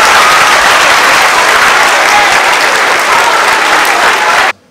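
A large audience of middle-school students applauding in a dense, loud mass of clapping. It cuts off abruptly near the end.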